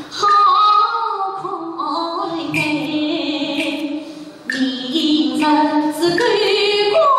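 A woman singing a Yue opera aria with instrumental accompaniment, in long, drawn-out notes; the singing drops away briefly a little past the middle.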